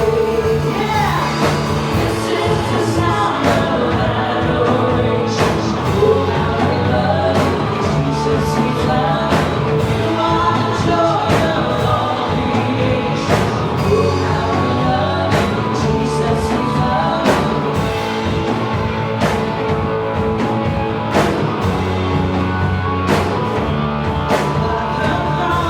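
Live church praise band with singing over electric band accompaniment and drums, playing a contemporary worship song at a steady beat.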